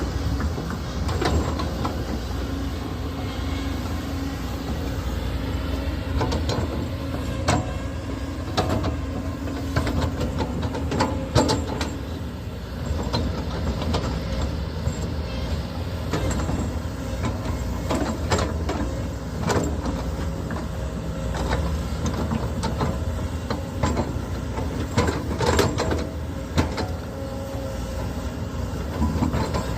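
Diesel engine of a heavy construction machine running steadily, with irregular metallic clanks and knocks throughout, heaviest in a few clusters.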